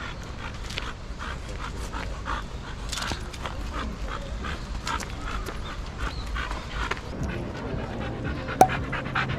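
A dog panting quickly and rhythmically, about three to four breaths a second. A single sharp click near the end.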